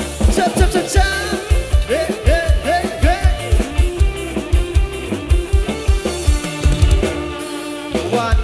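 Thai rot hae sound-truck band music at dancing volume through a large PA: an electronic keyboard lead with swooping pitch bends over a steady pounding kick drum and bass. The beat drops out briefly near the end, then comes back.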